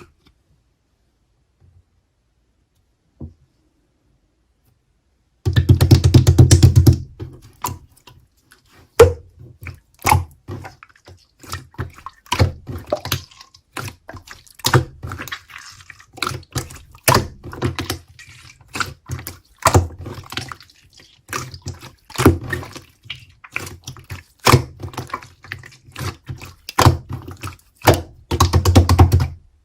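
Slime being squished and poked by hand. After a few quiet seconds, a dense run of wet crackling clicks, then irregular sticky pops and smacks about once or twice a second.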